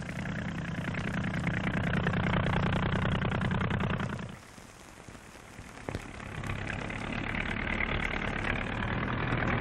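Early propeller aircraft's piston engine buzzing as it flies past, growing louder and then cutting off about four seconds in; a second fly-past builds up again from about six seconds in.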